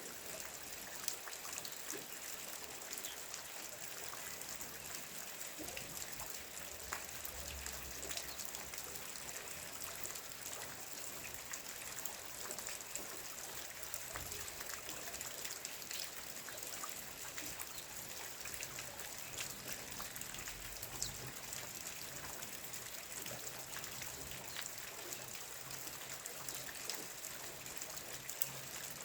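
Steady morning rain: an even hiss of rainfall peppered with many small, sharp drop ticks.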